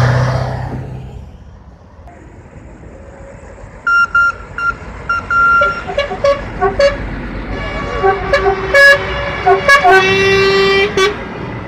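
A passing lorry's engine fades away at the start; from about four seconds in, truck horns sound in a run of short toots at changing pitches, ending in a longer blast near the end.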